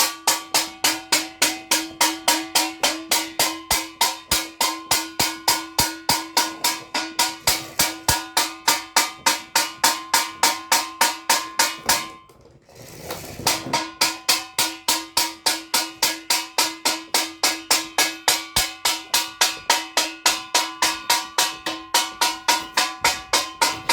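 Steady, rapid drum-like beats, about three to four a second, evenly spaced over a held tone, breaking off for a second or so about halfway through before resuming.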